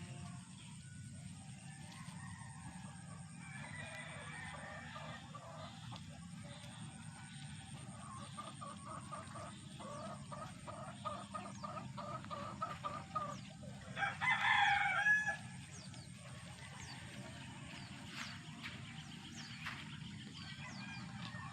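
Chickens clucking, then a rooster crowing once, loudly, about fourteen seconds in, over a steady low hum.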